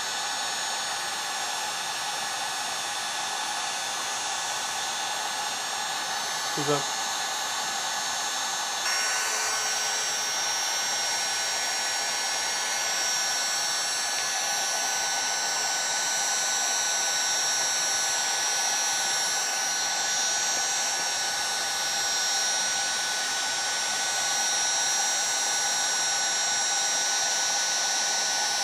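Electric heat gun blowing steadily with a fan whine, heating a chainsaw crankcase half so it can be assembled. About nine seconds in it gets a little louder and its whine grows brighter.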